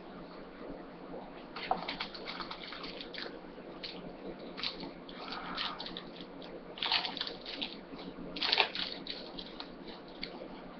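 Crinkling and rustling of a trading-card pack wrapper and cards being handled, in irregular bursts. It is loudest about 7 and 8½ seconds in.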